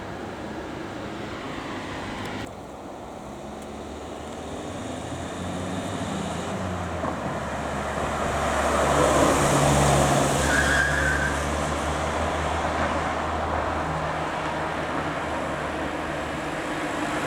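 Ambulance driving past in traffic: engine and tyre noise build to the loudest point about ten seconds in, followed by a brief high tyre squeal.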